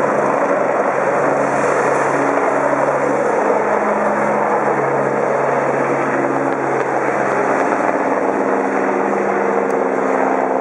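Agusta A109 Power helicopter's twin turbine engines and rotor at take-off power as it climbs away after lift-off: loud, steady rotor and engine noise with a low hum.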